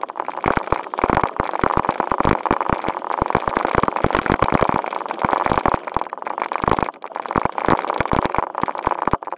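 Onboard sound of a JJRC Q76 1:16 4WD RC stunt car driving over gravel and dirt: a dense rattling, crackling noise with a faint steady motor whine under it, and many sharp knocks as the car bumps over the ground. It cuts off suddenly at the end.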